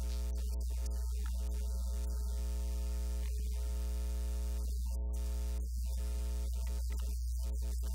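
Steady electrical mains hum with a buzzy series of overtones above it.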